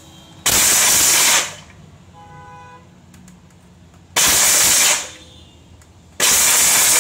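Philips HL7699 750-watt mixer grinder pulsed on its whip setting three times, each burst of the motor driving the blades through hard dry coconut pieces in the steel jar lasting about a second and starting and stopping abruptly. The second and third bursts come close together.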